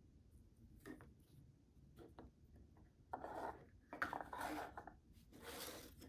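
Quiet handling of a resin keycap and its packaging: a couple of light clicks, then three spells of rubbing and scraping in the second half as it is set into a foam holder and the box is moved.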